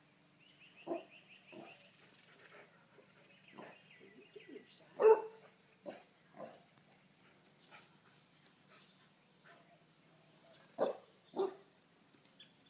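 Dog barking in short single barks, the loudest about five seconds in, with a quick pair near the end.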